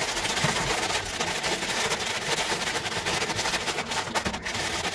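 Lay's potato chip packet crinkling, with the chips inside crunching as the sealed bag is squeezed and kneaded by hand to crush them to crumbs: a dense, steady crackle.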